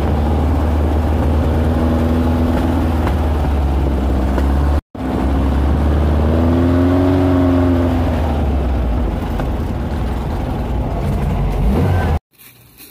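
Cabin sound of a Volkswagen Baja Bug driving on a dirt track: its air-cooled flat-four engine runs with a heavy low rumble, its pitch rising and falling as the throttle changes. The sound breaks off briefly about five seconds in and stops abruptly near the end.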